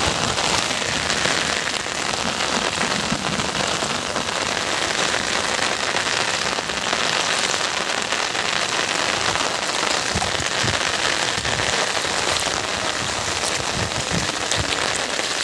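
Heavy rain falling steadily on the fields, a dense even hiss, with a few dull low knocks in the second half.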